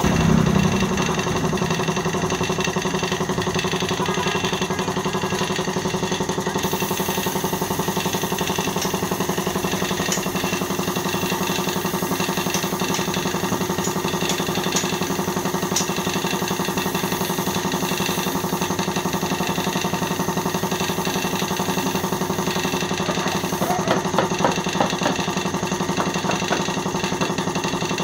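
Air compressor motor running with a steady hum, while a spray-painting gun hisses from about six seconds in until a few seconds before the end.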